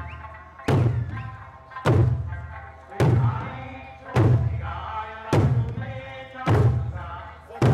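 Large Eisa barrel drums (ōdaiko) struck in unison by a line of drummers: seven heavy beats, a little over a second apart. Between the beats an Okinawan folk song (minyō) with singing carries on.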